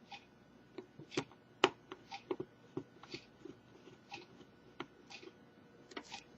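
Faint scattered clicks and taps of a small screwdriver and smartphone parts being handled on a tabletop, the sharpest click about a second and a half in.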